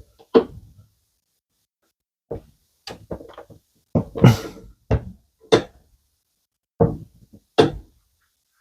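Metal bar clamps knocking against the wooden frame and against each other as they are handled and set in place, about ten irregular knocks and clanks.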